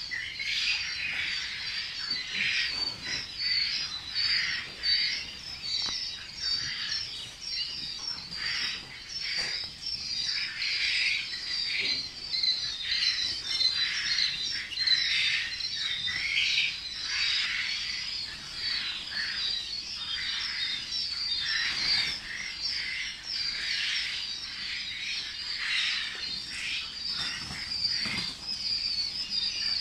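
Hundreds of young quail chicks crowded together, peeping and chirping in a dense, continuous high-pitched chorus.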